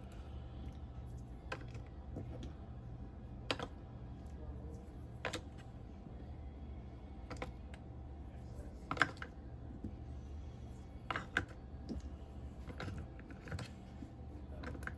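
Nickel-cadmium battery cells clicking and tapping against each other and the plastic battery case as they are set in one by one, about a dozen light clicks spread irregularly, over a steady low hum.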